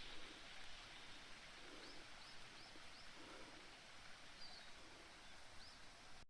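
Faint bird chirping: about six short, high chirps spread a few tenths of a second to a second apart, over a quiet steady hiss.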